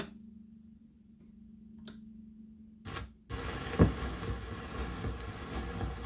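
A steady low hum with a few sharp clicks, then about three seconds in a stylus sets down on a 78 rpm shellac disc, an OKeh record from 1922. Loud surface hiss and crackle from the lead-in groove follow, with one heavy thump soon after the needle lands.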